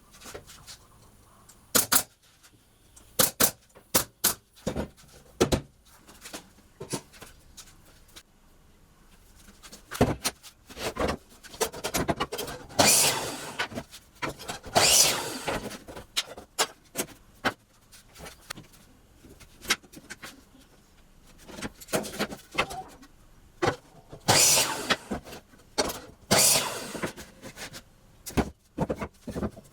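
Workshop handling of wooden pallet boards: scattered, irregular knocks and clatter, with a few short scraping strokes about a second long, two in the middle and two near the end.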